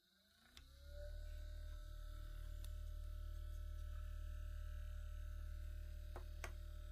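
An electric motor spinning up over about a second, then running steadily with a low hum and a steady whine, presumably driving the rotor of spinning neodymium magnets in an eddy-current water heater. A few light clicks sound partway through.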